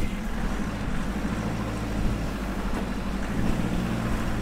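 Steady engine hum and road noise of a four-wheel drive cruising at an even speed on a sealed road.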